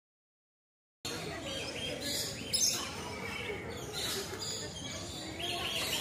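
Lorikeets chirping and screeching, a run of high, shrill calls over a steady aviary background, with the loudest call about two and a half seconds in. The sound begins about a second in.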